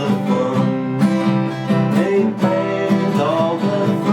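Instrumental music between sung lines of a song, with steady chords.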